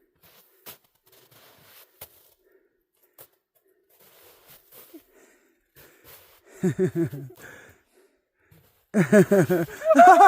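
Faint soft steps and rustling in snow, then a person's voice sounding out loudly twice, the second time in rapid repeated bursts near the end.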